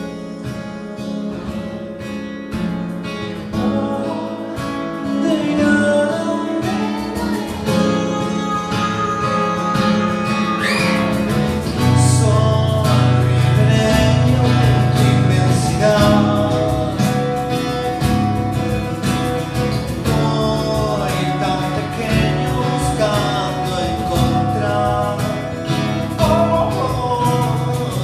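Live acoustic folk song: two acoustic guitars, one nylon-string and one steel-string, played over a cajón beat, with a man singing. The accompaniment fills out and gets louder about twelve seconds in.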